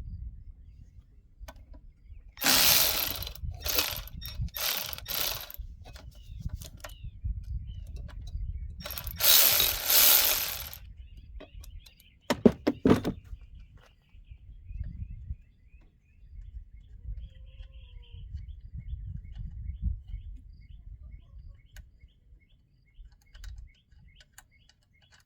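Aerosol can of brake cleaner sprayed in hissing bursts: four short ones in quick succession a few seconds in, then one longer spray around ten seconds in. Clicks and handling knocks come between, over a low rumble.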